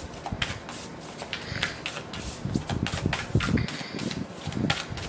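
A deck of oracle cards being shuffled by hand: a run of light, irregular card flicks and taps with soft thumps.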